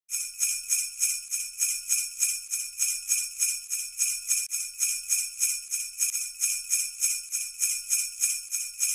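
Sleigh bells shaken in a steady rhythm, about four shakes a second.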